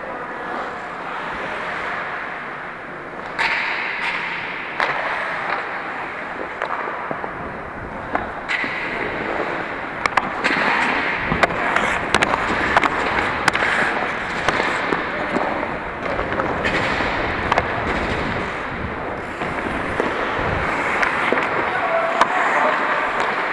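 Ice hockey skates scraping and gliding on the ice, with many sharp clacks of sticks and puck, coming thickest about halfway through.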